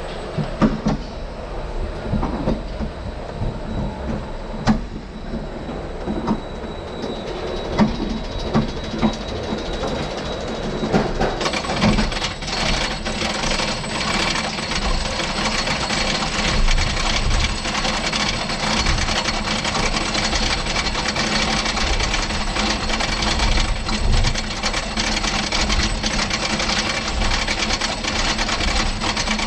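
RMC single-rail roller coaster train rolling out of the station with scattered clunks, then climbing the chain lift hill from about eleven seconds in with a fast, steady clatter of the lift chain and anti-rollbacks.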